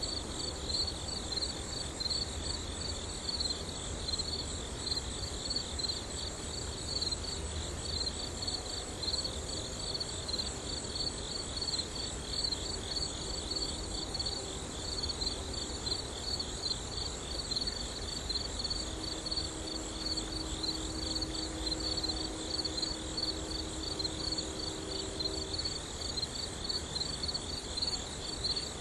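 Steady outdoor chorus of insects trilling, high-pitched and rapidly pulsing without a break. A fainter, lower hum of flying honey bees comes and goes through the second half.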